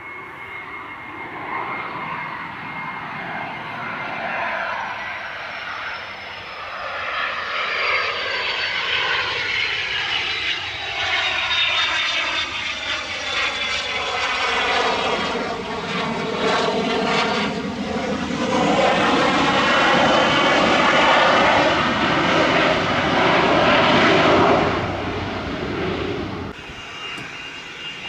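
Cessna Citation XLS business jet's twin turbofans whining as it comes in to land and rolls past along the runway: a high whine slides gently down in pitch while the engine noise swells, loudest in the later part, then drops off suddenly near the end.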